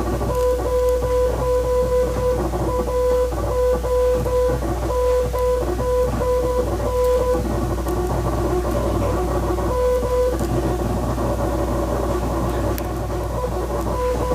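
Morse code signal: a steady mid-pitched beep keyed on and off in dashes and dots for about the first seven seconds, one more dash about ten seconds in, and sending again near the end. Guitar background music plays under it.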